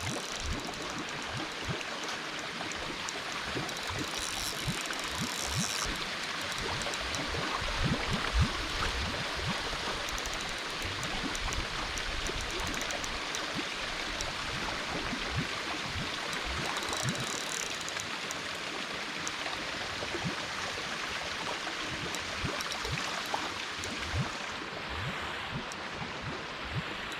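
Steady rush of flowing water, with frequent low bumps and thumps mixed in.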